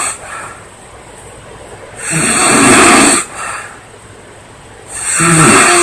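A woman snoring loudly: two long, harsh snores about three seconds apart, each followed by a brief softer one, with quiet breathing between.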